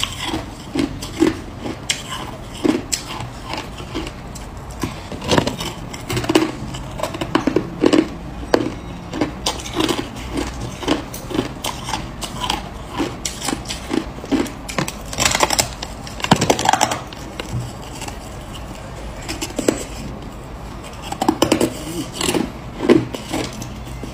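Hard crushed ice being bitten and chewed close to the microphone: repeated crisp crunches, often in quick runs of a few a second, with two longer, louder crunches past the middle.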